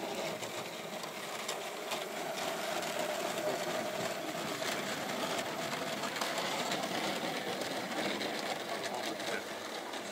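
Model train with wagons of logs running past on the layout's track: a small electric motor's steady hum with the wheels ticking over the rail joints. It grows louder toward the middle and eases off near the end.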